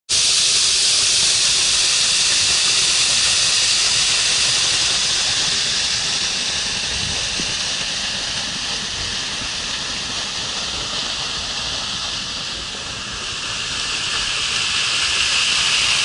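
Rushing hiss of a partly frozen waterfall, its water pouring through the ice into a plunge pool, steady and loud. It eases a little past the middle and swells again near the end.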